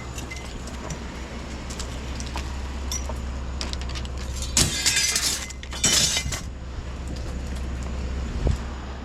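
Scrap being rummaged through and handled: light clinks, then two loud rattling clatters about halfway through, over a steady low engine hum.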